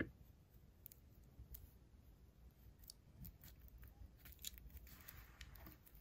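Near silence with faint scattered small clicks and rustles: a paracord knot being worked loose by hand, with a steel multitool held in the other hand.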